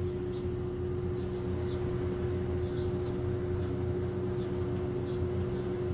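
Steady machine hum with one constant mid-pitched tone, with a small bird chirping repeatedly in the background, short falling chirps about once or twice a second.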